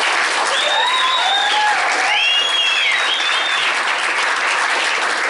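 Comedy club audience applauding after the comedian's closing line, with a few rising-and-falling whoops of cheering in the first three seconds or so.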